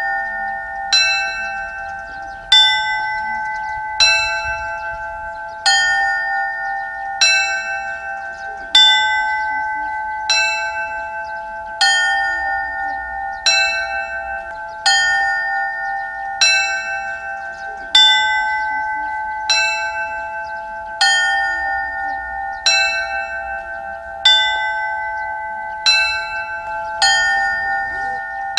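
Set of small Orthodox church bells in a belfry, rung by hand with ropes in a festive Paschal peal. Several bells are struck together about every second and a half in a repeating pattern, and their tones ring on between strokes.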